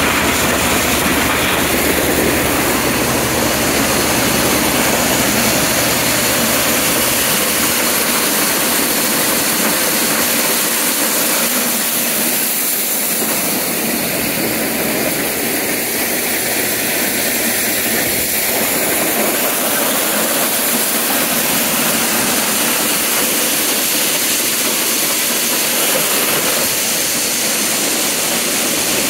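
John Deere 43 corn sheller running as popcorn ears are fed in: a loud, steady mechanical din of ears being shelled and cobs rattling through, with the two-cylinder John Deere 720 tractor that drives it running underneath.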